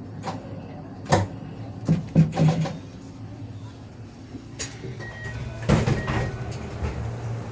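Inside a stopped Kintetsu 22000-series (ACE) limited express car: a steady low hum from the train. Over it come a sharp knock about a second in, a quick cluster of knocks around two seconds in, and more bumps near six seconds.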